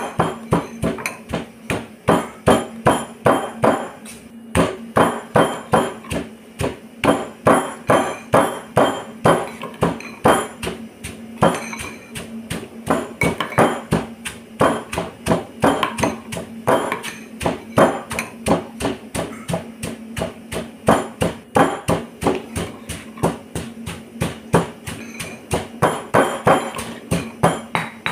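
Stone pestle pounding coarse salt, red chilli and garlic in a granite mortar: a steady run of knocks, about three a second, some strokes louder than others.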